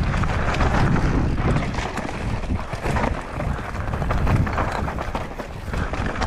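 Wind buffeting the microphone on a fast mountain-bike descent, over the rattle and crunch of the bike rolling across a rough, rocky trail.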